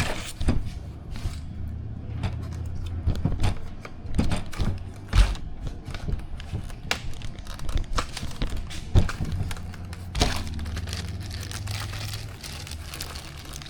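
Plastic parts bags crinkling and rustling, with irregular clicks and knocks of small plastic parts and screws being handled on a table, while RC plane kit hardware is sorted. A steady low hum runs underneath and stops near the end.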